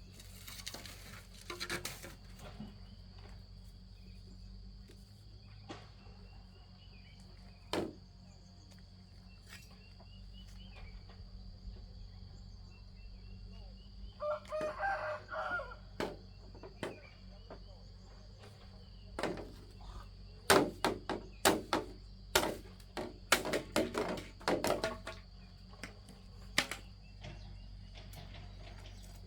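One drawn-out, wavering animal call about halfway through, over a steady high hum. It is followed in the second half by a run of loud, sharp knocks and clacks.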